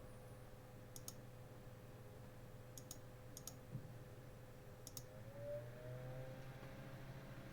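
Electric fan running faintly with a steady hum, its pitch rising a little for a moment past halfway. A few light, sharp clicks sound about one, three and five seconds in.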